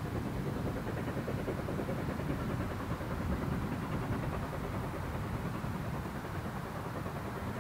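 A train running on the track: a steady low rumble with no distinct beats.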